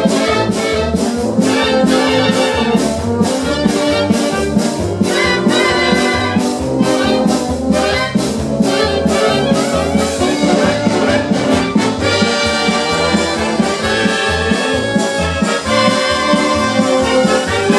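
Military brass band playing, with saxophones, trumpets and trombones over a steady drum beat.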